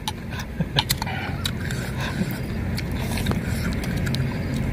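Metal spoons clinking and scraping against stainless steel bowls of soup, a scattered series of short clicks, over a steady low rumble.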